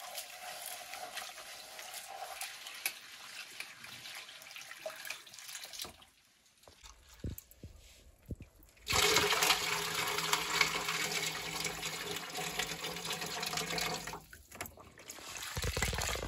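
Water running from a pipe into metal bowls in a stone sink while soaked grains are rinsed and swished by hand. The flow is faint for a few seconds near the middle, then louder from about nine seconds in.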